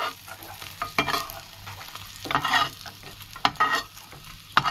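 Metal spatula scraping across a metal karahi and knocking against it as fried prawns are scooped out, with a few sharp clacks and short scrapes over a light sizzle of hot oil.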